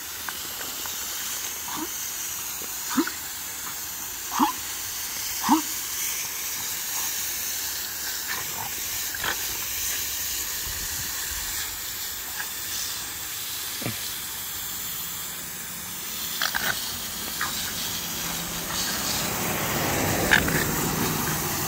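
Garden hose spray nozzle hissing steadily, with a French bulldog's short vocal sounds breaking in several times as it snaps at the water, three of them loud within the first six seconds. The spray grows louder near the end.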